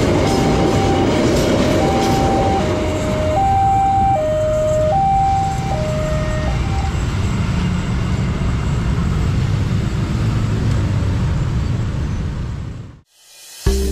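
A train passing a railway level crossing, its steady rumble and clatter under the crossing's electronic warning siren, which alternates between two notes (E-flat and G) about every three-quarters of a second. The siren stops about seven seconds in. The train noise carries on, then fades and cuts off shortly before the end.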